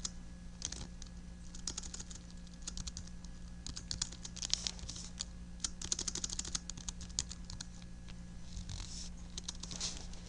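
Typing on a computer keyboard: keystrokes in short clustered runs, over a steady low hum.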